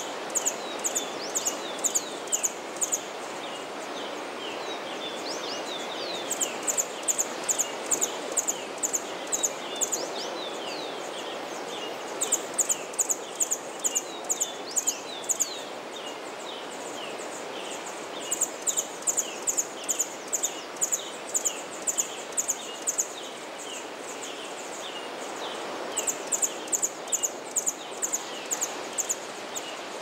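Steady wash of Atlantic surf under a dawn chorus of birds giving many short chirps. A high, rapid pulsed call of about four pulses a second comes in bouts of a few seconds, about every six seconds.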